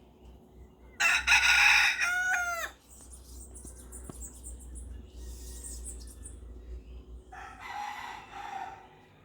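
Rooster crowing: one loud crow about a second in, ending in a drawn-out pitched note, then a fainter, shorter call near the end.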